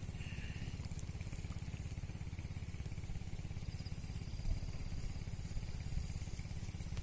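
A small engine running steadily: a low rumble with a fast, even pulse.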